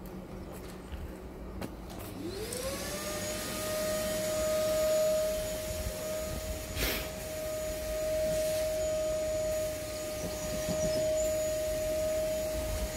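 An electric motor spins up about two seconds in, its whine rising quickly and then holding at a steady pitch. A brief rush of noise comes about seven seconds in.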